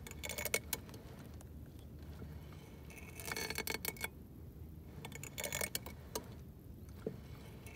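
Milha Náutica Iron kayak's braided steel rudder cable scraping and ticking in short rasping bursts as the rudder control lever is turned, three times: broken strands of the fraying cable rubbing against the side of the housing, a sign the cable is close to snapping.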